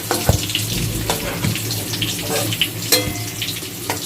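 Potatoes sizzling and crackling in hot oil and ghee in a kadai, with a few sharp clicks of a utensil against the pan as the fried potatoes are lifted out. A steady low hum runs underneath.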